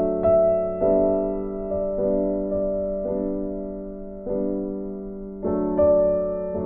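Slow, gentle piano music: soft notes and chords struck roughly once a second, each ringing on and slowly fading.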